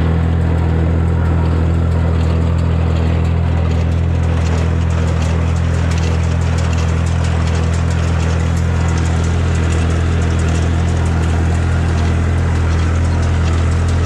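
Massey Ferguson 245 tractor's engine running steadily as it pulls and drives a Massey Ferguson 120 small square baler, with a rapid clatter from the baler over the engine from a few seconds in.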